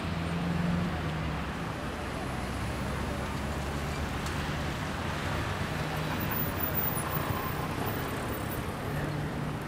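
A steady low background rumble with a faint, even hum underneath and no distinct events.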